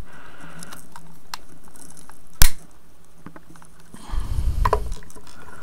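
A single sharp, loud knock about two and a half seconds in: the hard plastic housing of a PIR motion-sensor light being struck to crack it apart. Faint clicks of handling come before it, and a short scraping handling noise follows near the end.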